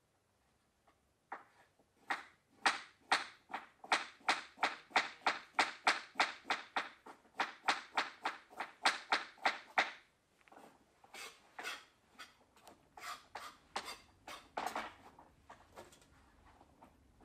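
A fast, even run of short sharp sounds made by a dancer's movements, about four a second, turning sparser and irregular after about ten seconds.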